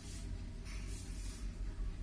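Tortoise sneezing: short hissing puffs of air, twice, over a steady low hum.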